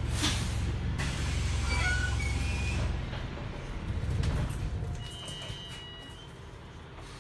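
Inside a Wright StreetLite single-deck bus with a Mercedes-Benz OM934 four-cylinder diesel: a sharp hiss from the air brakes just after the start as the bus stands at a stop, with the engine running loudly and then dropping to a quieter idle about three seconds in. A short high beep sounds about five seconds in.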